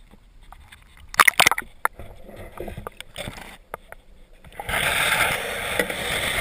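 A camera dunked under the water beside a boat: scattered clicks and knocks, with a cluster of sharp knocks about a second in, then from about three-quarters of the way through a steady rush of water noise.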